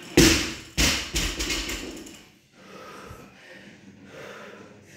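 A 135-lb barbell loaded with 45-lb bumper plates dropped onto rubber gym flooring: a heavy thud, a second thud as it bounces about half a second later, then a short clatter of plates and bar as it settles.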